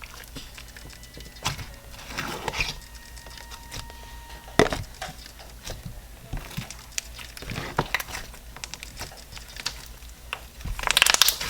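Floam slime, a glue-based slime full of polystyrene foam beads, being squeezed and worked by hand: the beads crackle and pop in scattered clicks, with a busier run of crackling near the end.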